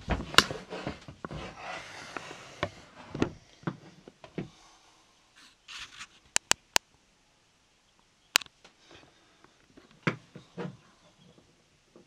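Handling noise of a camera being adjusted and repositioned: rustling and rubbing for the first few seconds, then a few sharp clicks and small knocks.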